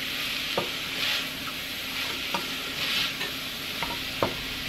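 Browned ground chuck with onion, garlic and spices sizzling in a stainless steel pot while a wooden spatula stirs it, the scraping swelling about once a second, with a few light clicks of the spatula against the pot.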